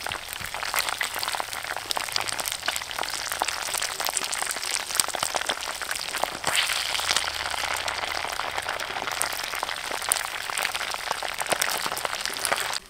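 Whole frogs deep-frying in hot oil in a clay pot: a steady, dense sizzle with rapid crackling and spitting of the oil.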